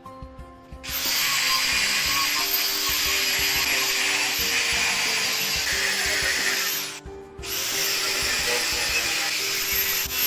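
An electric power tool runs at speed with a high, wavering whine. It cuts out for about half a second past the middle, then starts again.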